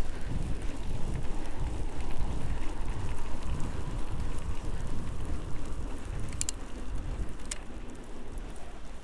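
Wind rumbling on the microphone of a handlebar-mounted camera and fat tyres rolling over snow as a fatbike is ridden, with two sharp clicks near the end. The rumble eases off slightly in the last second or two.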